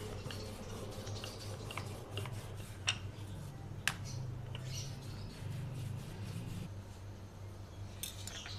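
Rolling pin working semolina dough on a stone surface, with faint rubbing and light knocks, including two sharper clicks about a second apart near the middle, over a steady low hum.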